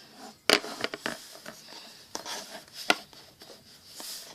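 Scattered light clicks and taps of small hard objects being handled, the sharpest about half a second in and again near three seconds.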